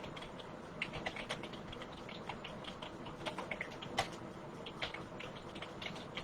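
Computer keyboard keys being typed on, short clicks in quick irregular succession as a passage is typed out.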